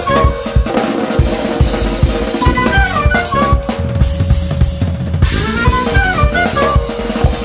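Recorded gypsy-jazz band music: a drum kit keeps a busy beat of snare, rimshots and bass drum under a melody of short, gliding lead notes, with one long held note about halfway through.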